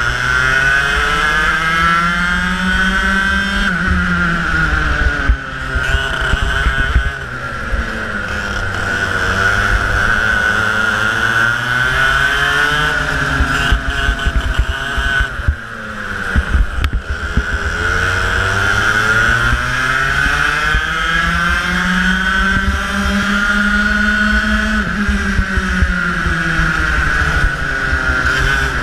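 Racing kart engine heard from on board, its revs climbing and falling in long sweeps as the kart accelerates along the straights and backs off for the corners, about three times over.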